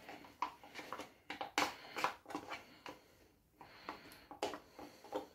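Wooden spoon scraping and knocking against a tub of crème fraîche while scooping it into a pot: a series of light, irregular clicks and knocks.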